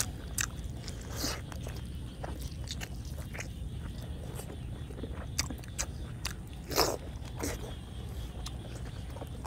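Close-miked eating sounds: boiled pig's head meat torn by hand, bitten and chewed, with scattered wet clicks and crunches. The loudest comes about seven seconds in, over a steady low rumble.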